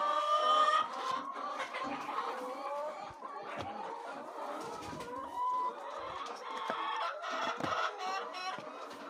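A flock of laying hens clucking, many birds calling over one another, with scattered sharp clicks.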